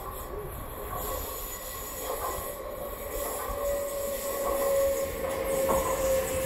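TCDD E 64000 Marmaray electric commuter train pulling into the platform, growing louder as it nears. A steady high squeal sets in about halfway through as it slows.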